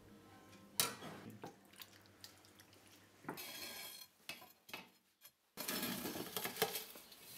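Faint clinks and scrapes of a metal poker working the hot ashes and embers on a coppo, the metal lid over a roasting pan of lamb, with soft rustling of ash. The sound drops out for about a second in the middle.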